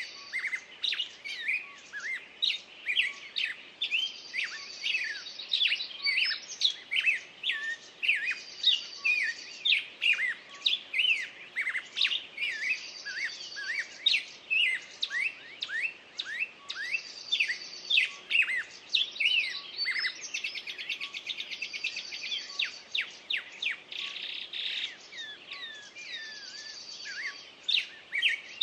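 A chorus of songbirds: many quick, sweeping chirps from several birds overlapping, with a high, even trill that comes back about every four seconds.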